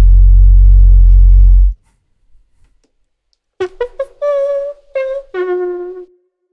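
A beatboxer's mouth sounds: a very loud, deep held bass tone that cuts off sharply under two seconds in, then after a pause a few short pitched blips and three held notes, each lower than the last.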